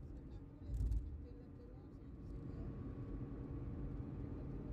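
A car driving at speed: steady road and engine noise with a faint hum. A short heavy thump comes about a second in.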